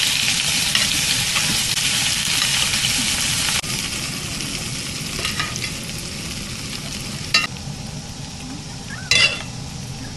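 Butter and garlic sizzling hard in a hot cast-iron skillet around a tomahawk steak as it is basted with a spoon. The sizzle drops a step about three and a half seconds in. Two sharp metal clinks of the spoon against the pan come near the end.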